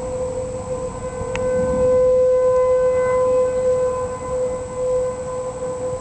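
Outdoor tornado warning siren sounding a steady tone, swelling louder about two seconds in and fading again.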